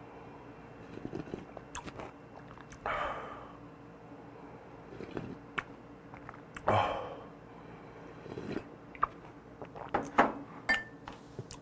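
A person slurping hot fish broth from a bowl held to the lips, with two long slurps about three and seven seconds in. Near the end come quick lip smacks and mouth clicks.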